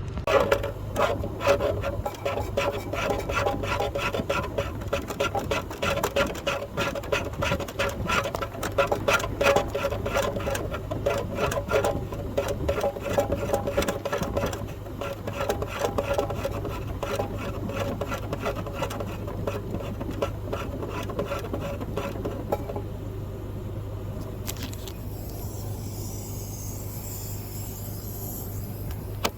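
Power-driven rotary dryer-vent cleaning brush spinning inside the vent duct, a fast rattling scrape over a steady hum as it clears out lint. The rattling fades out about two-thirds of the way through, leaving the hum and a hiss.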